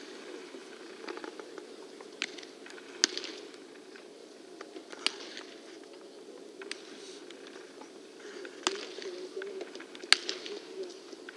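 Baseballs smacking into leather gloves during a game of catch: about five sharp pops at uneven intervals, the loudest about three seconds in and near the end, over a steady low background hum.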